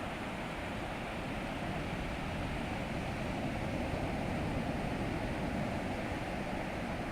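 Ocean surf at a beach, a steady rushing noise that swells slightly in the middle, with wind on the microphone.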